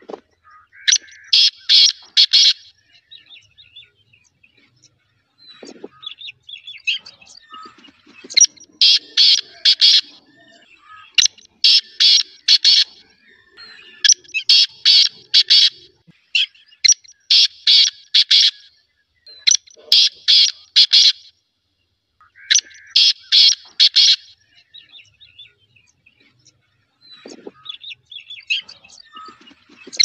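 Black francolin (black partridge) calling: a loud phrase of about five sharp, clipped notes, repeated seven times, mostly about every three seconds, with fainter notes in between.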